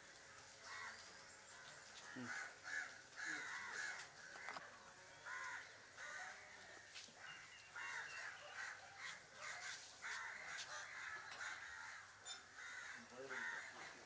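Crows cawing over and over, many short calls following one another with brief gaps, faint.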